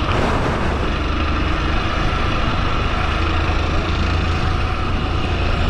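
Motorcycle engine running steadily as it is ridden along a city street, with an even rush of wind and road noise over it.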